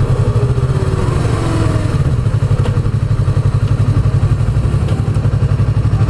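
2016 Yamaha YZF-R3's parallel-twin engine running at low, steady revs with an even, rapid pulsing beat.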